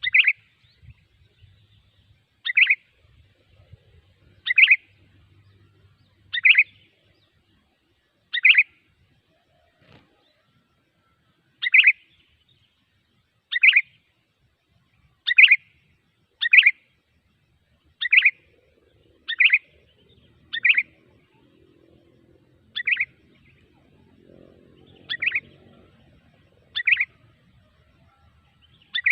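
Sooty-headed bulbul (kutilang) call played as a lure: one short, sharp chirp repeated over and over, about every one and a half to two seconds.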